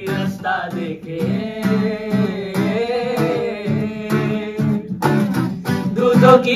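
Acoustic guitar strummed in a steady rhythm while a young man sings a melody over it.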